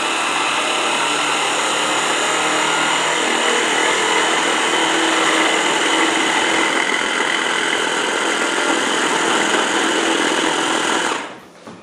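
MEGAWISE 800-watt immersion hand blender's motor running steadily on its chopper attachment, grinding peanuts, sugar and peanut oil into peanut butter. The motor stops near the end.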